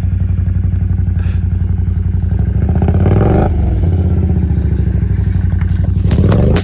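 Can-Am ATV engine running, revved up twice, about three seconds in and again near the end, while the quad is stuck deep in snow and the rider works to free it.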